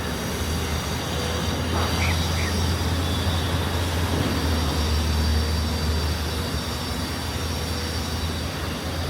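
Steady street ambience of road traffic, with a constant low rumble. Two short high chirps come about two seconds in.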